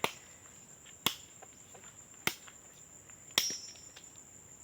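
Cassava stems being chopped into planting cuttings: four sharp strikes about a second apart, the last with a brief metallic ring. Insects drone steadily in the background.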